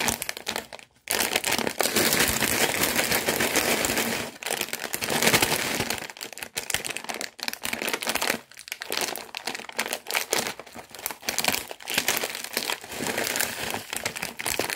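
Plastic Piattos chip bag crinkling and crackling as it is handled and pulled open at its sealed top, in long spells of crackling broken by a few short pauses.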